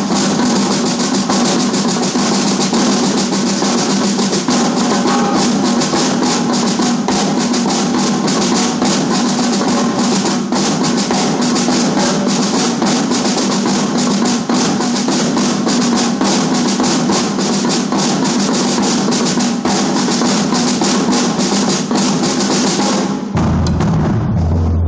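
Percussion ensemble of marching snare drums, tenor drums and bass drums playing fast, dense rolls and rhythms. About 23 seconds in the snares drop out and deep bass drum strokes take over.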